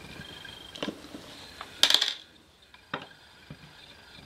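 Metal-on-metal clicks and clinks as a screwdriver and hands work on a metal avionics chassis plate around its coax plugs, with a louder cluster of clinks about two seconds in.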